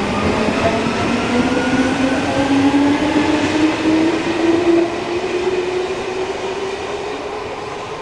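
Odakyu 8000 series electric commuter train pulling away, its electric drive whine rising steadily in pitch as it gathers speed. It is loudest about halfway through, then fades as the cars move off.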